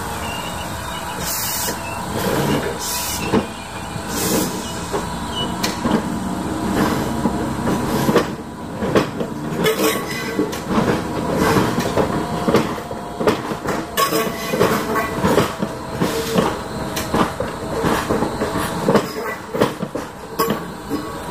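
DART 8100-class electric multiple unit running past over pointwork. A few short hisses come in the first seconds, then its wheels click and clack over the rail joints and crossings, irregularly and fairly fast, from about six seconds in.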